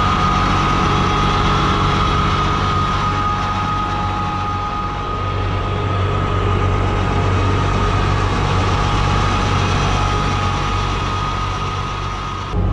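Tractor diesel engine running steadily while it powers and pulls a towed mobile brick-making machine. Its low, even drone is mixed with mechanical clatter and a steady high whine.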